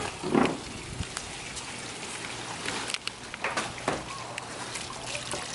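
Water from a garden hose pattering and splashing into an inflatable kiddie pool, a steady spatter of drops.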